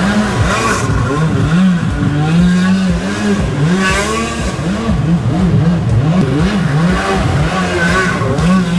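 Stand-up jet ski engine revving up and down over and over as the craft spins in tight circles, with a short steady hold about two seconds in and again near the end. The water spray from the jet adds a rushing hiss.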